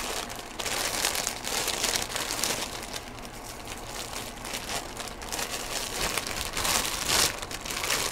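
Crinkly packaging wrap being crumpled and torn open by hand, in uneven bursts of rustling, loudest about a second in and again near the end.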